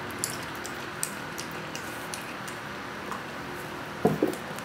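A cat eating raw chicken, with scattered wet clicks and smacks of chewing and licking. Two short dull knocks about four seconds in are the loudest sounds.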